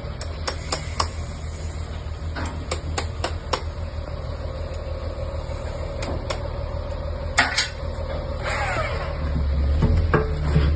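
Steady low hum of a homemade drill press's electric motor running, with scattered sharp clicks and knocks from handling the machine.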